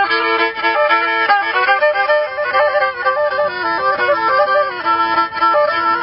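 Instrumental folk music: a bowed string instrument plays a melody of quick stepping notes, often two notes sounding together.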